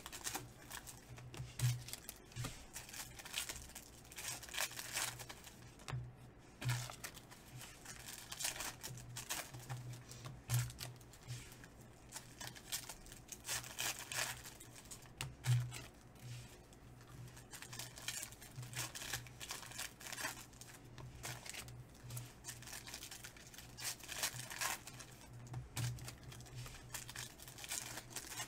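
Foil basketball-card pack wrappers being torn open and crinkled by hand, with irregular ripping and rustling.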